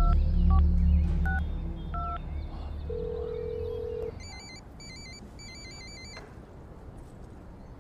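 Mobile phone keypad beeps as a number is dialed, four short tones in the first two seconds, then a single steady ring-back tone about three seconds in. About a second later another phone's electronic ringtone starts, a rapid warbling pattern in short bursts.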